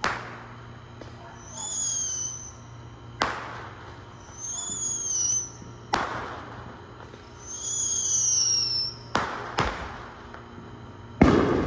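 Fireworks going off: three times a high whistle sounds for about a second and is followed by a sharp bang, with two more bangs close together near the end and a final, loudest bang.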